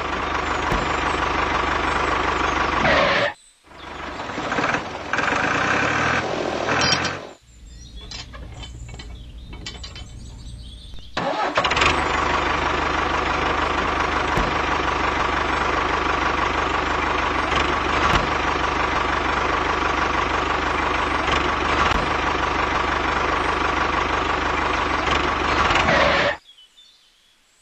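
Steady engine-like running of a miniature model tractor, with a brief dropout about three seconds in and a quieter stretch of a few seconds around the eight-to-eleven-second mark, then running steadily again until it stops shortly before the end.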